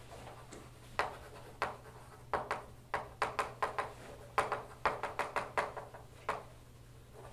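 Chalk tapping and scratching on a blackboard as a line of words is written: a run of short, sharp clicks, quickest and densest between about two and six seconds in, over a faint low room hum.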